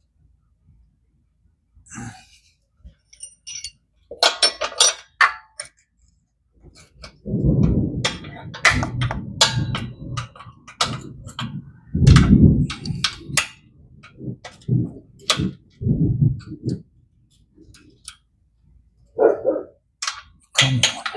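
Metal hand tools clinking and clanking, a run of sharp metallic clicks with duller knocks and thumps of handling between them.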